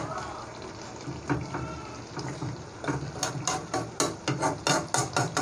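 A spatula stirring thick chicken curry in a metal pan: soft wet squelching and scraping, then from about three seconds in quick knocks and scrapes against the pan, about four a second.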